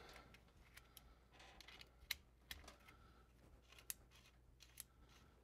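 Near silence with a few faint, scattered clicks and taps from hands and a tool working the clamp of a banded rubber pipe coupling.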